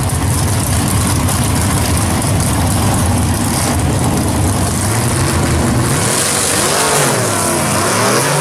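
Two nostalgia-class drag cars' engines running loudly at the starting line. From about six seconds in, an engine's pitch dips and then climbs again as the revs are brought up before the launch.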